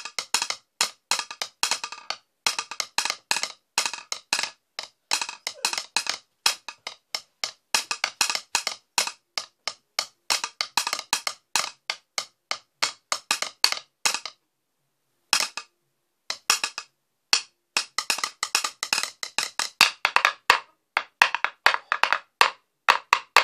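Wooden drumsticks beating a fast, uneven rhythm on the carved wooden top of a stool, giving sharp, dry wooden clicks several times a second. There is a break of about a second partway through.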